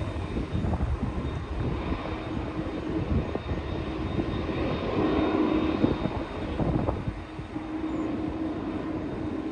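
Jet engines of a taxiing Airbus A330 airliner running steadily, a constant hum with a faint whine above it. Wind buffets the microphone in an uneven low rumble.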